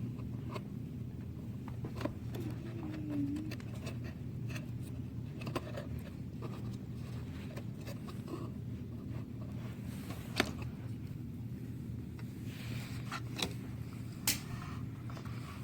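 Scattered small clicks, taps and scrapes of plastic parts from an opened car central-locking vacuum pump being handled, over a steady low hum.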